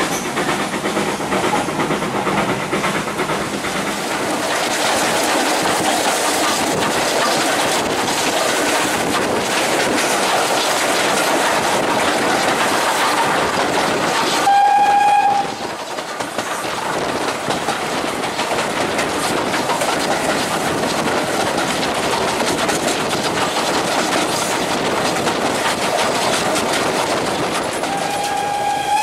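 Steam-hauled train running along the line, the carriage wheels clattering over the rail joints in a steady rumble. The locomotive's whistle sounds once briefly about halfway through and starts again near the end.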